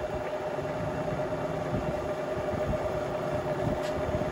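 Vertical milling machine running with its spindle at 1000 RPM and an edge finder in it: a steady mechanical hum with one constant high note.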